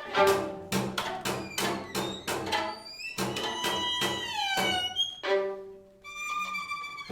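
String quartet playing contemporary classical music. A run of short, sharp, detached strokes gives way about three seconds in to held notes that slide downward, and high sustained notes follow near the end.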